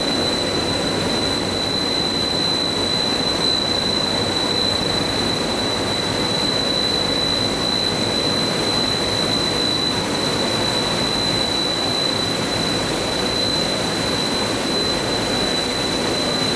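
Coil car mat extrusion line running: a steady machinery hum and rush with a constant high-pitched whine on top.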